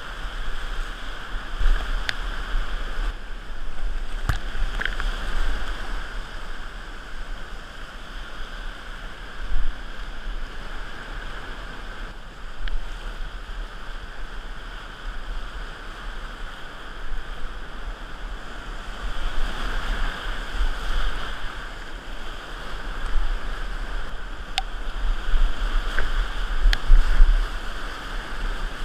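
Whitewater rapids rushing and splashing around a kayak running them, rising and falling in loudness, with a few sharp knocks now and then.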